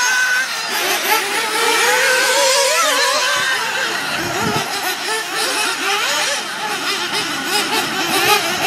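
Several nitro RC buggies' small two-stroke glow engines racing, their high-pitched whines revving up and down and overlapping one another.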